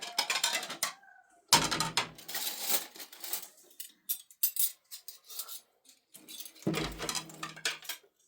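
Clattering of dishes and metal utensils, with many sharp clinks and two heavier knocks, one about a second and a half in and one near the end.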